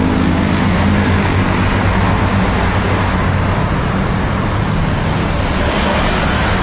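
Loud, steady road traffic: the low hum of a nearby engine running, with the rushing noise of passing cars.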